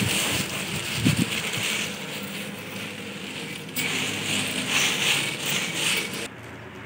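Dried red chillies poured from a plastic bag onto a concrete floor and spread out by hand: dry papery rustling and crackling of the pods and bag, in two spells, that drops off sharply near the end.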